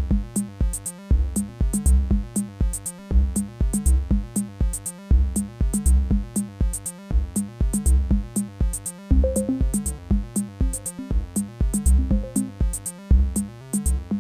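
Electronic dance music played live on hardware synthesizers and drum machines, with a Roland MC-707 groovebox among them. A steady drum-machine beat of kick drum and high hi-hat ticks runs under a repeating synth bass line.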